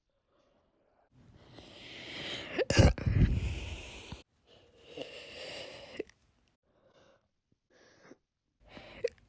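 A woman hiccuping: the loudest hiccup comes about three seconds in amid heavy breathing, followed by softer hiccups every second or few.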